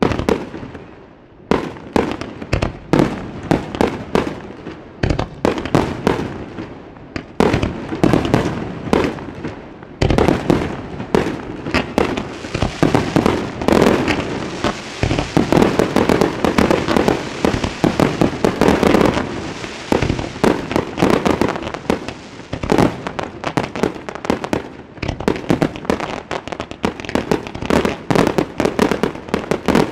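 Fireworks display: a rapid barrage of aerial shell bursts, many bangs with crackling between them, thickening into an almost continuous rattle about ten seconds in.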